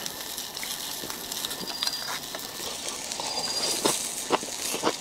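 A steady hiss from a charcoal hot pot boiling, with light clicks of chopsticks against a ceramic bowl as a piece of beef tripe is swirled in dipping sauce. Near the end come short chewing and mouth sounds as the tripe is eaten.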